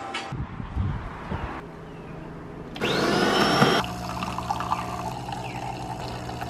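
Bean-to-cup espresso machine working: a loud whirring burst about three seconds in, then a steady pump hum as coffee streams into a cup.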